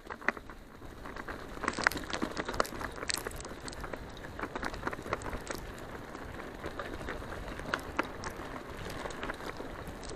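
Bicycle tyres rolling over a sandy dirt track: a steady gritty crunch with many scattered small clicks and crackles.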